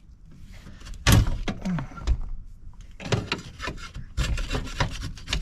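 Scraping, rubbing and knocking of hands working inside a truck's dashboard, breaking at a dried mud dauber nest, with a sharp knock about a second in and steadier scraping near the end.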